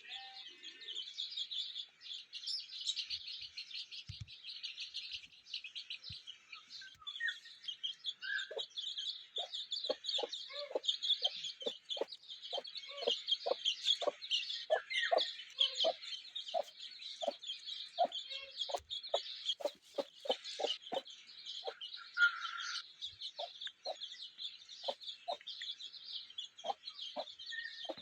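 Aseel chickens clucking: short clucks repeating about twice a second, starting about a third of the way in, over continuous high chirping.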